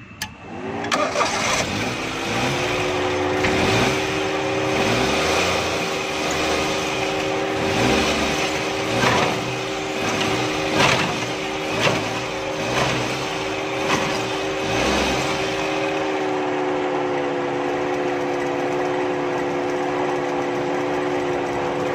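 Suzuki Khyber's 1000cc three-cylinder engine starting and then running, with a run of knocks about once a second in the first fifteen seconds as the clutch is let out and the engine jerks. The jerk comes from a broken engine mount.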